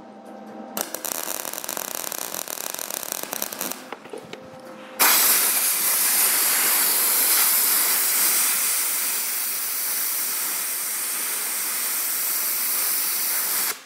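MIG welder tacking a sheet-steel patch onto a tractor fender, a crackling sizzle for about three seconds; the voltage is a little high and the weld blows a small hole. About a second later a compressed-air blow gun hisses steadily, louder, for most of the rest of the time, cooling the fresh weld so the thin metal doesn't warp, and cuts off near the end.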